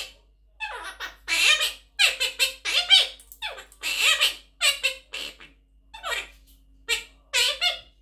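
A blue Quaker parrot (monk parakeet) talking in mimicked human speech, in a string of short phrases with brief pauses: "you are baby", then "you are a big baby".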